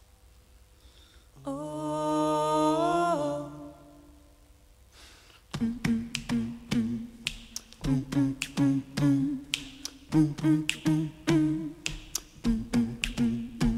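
A cappella vocal group's intro: a held, wordless hummed chord about a second and a half in, then from about five and a half seconds a steady groove of snapping body-percussion clicks over a repeating low vocal bass line.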